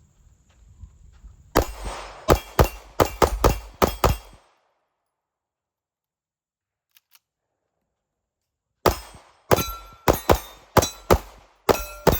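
Ported 9mm Vanta 9 pistol firing two rapid strings of shots, several per second, each string of about eight to ten shots, with a pause of a few seconds between them.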